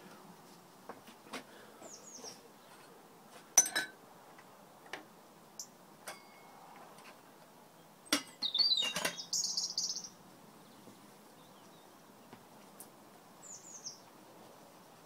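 Light metallic clinks from a stainless-steel billy tin and its lid being handled and closed, loudest in a burst of knocks and scraping about eight seconds in, with birds chirping now and then.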